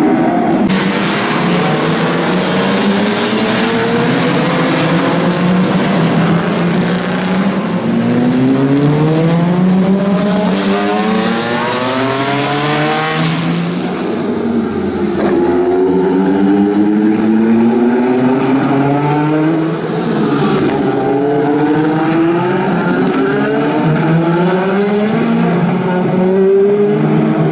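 Historic Grand Prix racing cars accelerating hard one after another, each engine's note climbing in pitch through the gears and dropping back at each upshift, with several cars overlapping.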